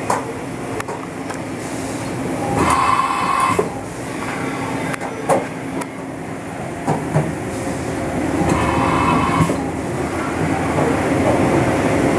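Machine shop background noise: a steady hum of running machinery, broken by two bursts of higher-pitched noise about a second long and a few sharp knocks and clanks.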